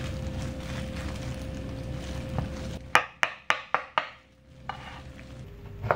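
Kitchen knife slicing a peeled banana on a wooden cutting board: five quick, sharp chops about four a second, each blade striking the board, about three seconds in.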